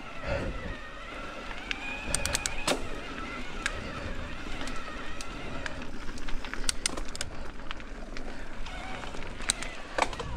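Mountain bike riding down a dirt trail: a steady tyre and wind rumble, with clusters of sharp clicks and rattles from the bike and a wavering whine.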